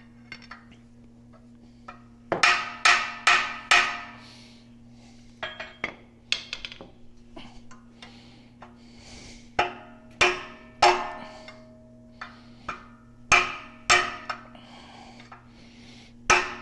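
Hammer blows on a long metal rod, driving a worn-out bearing race out of a tractor transmission case. The sharp, ringing blows come in groups of two to four with short pauses between, about fifteen in all.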